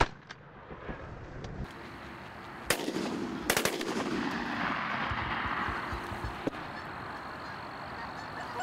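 Three shotgun shots, one about two and a half seconds in and two in quick succession about a second later, then Canada geese honking.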